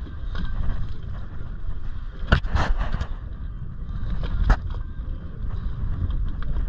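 Wind rumbling on the microphone over the water noise around a small open fishing boat. A few sharp knocks come about two and a half seconds in and one more at about four and a half seconds.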